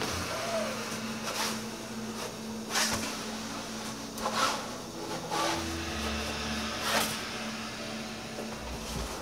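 Steady hum of commercial bakery equipment, with about five short scraping swishes as loaves are slid into a deck oven on a peel board.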